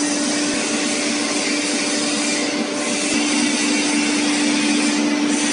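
Wood CNC router machinery running: a steady hum with a constant low tone over a hiss. A fainter higher tone drops out about three seconds in.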